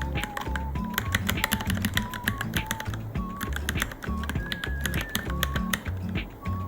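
Typing on a Varmilo Minilo mechanical keyboard: a steady, fast run of irregular key clicks, several a second, over background music with a bass line and a simple melody.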